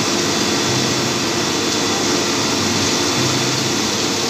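Concrete mixer truck running with its drum turning: a steady, loud mechanical noise with a faint hum under it.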